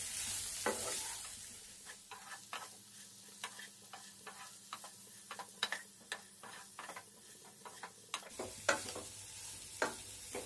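Spatula stirring boiled potato cubes in a non-stick pan, with irregular taps and scrapes against the pan. A faint sizzle of the hot oil and spices fades after about two seconds.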